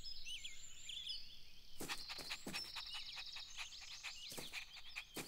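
Faint garden ambience of birds chirping and twittering in short high calls. About two seconds in, a thin, rapid high trill joins them, along with a few soft clicks.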